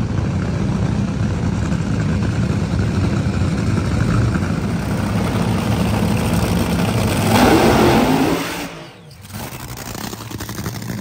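Top Fuel dragster's supercharged nitromethane V8 running at the starting line, a steady heavy rumble. It swells louder about seven and a half seconds in, then drops away abruptly near nine seconds and carries on quieter.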